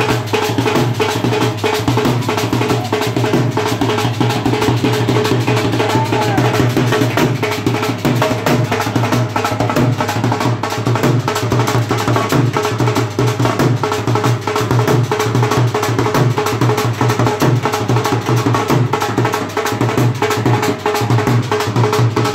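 Loud dance music with a fast, dense drum beat and a heavy low end.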